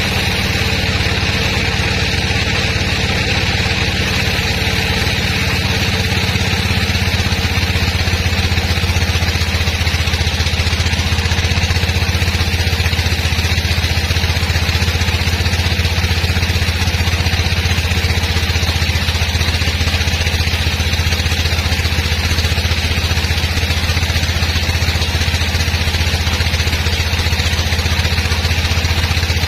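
Sawmill machinery running steadily with a low, engine-like hum, growing a little louder about seven seconds in.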